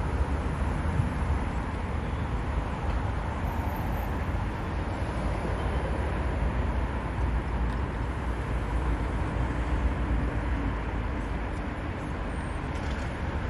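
City street ambience: a steady rumble of road traffic, with no single event standing out.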